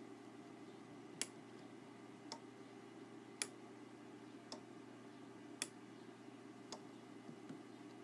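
Small Rayex LEG-12F PCB relay on a timer board clicking on and off about once a second, switching a light bulb. Six clicks, a louder pull-in click alternating with a softer release click, over a faint steady hum.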